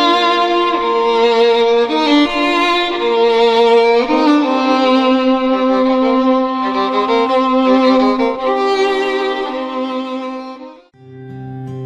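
Violin music: a bowed melody over a held lower note. It fades out about a second before the end, and a new tune with a low held note begins.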